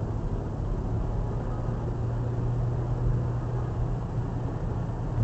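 Steady low drone of a car driving: engine and road noise.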